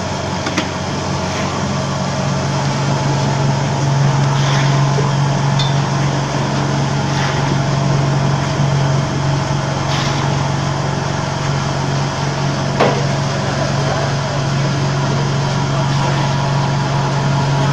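Paver-block vibrator table running with a steady low hum as plastic moulds of wet concrete shake on its steel top, with a few sharp knocks now and then.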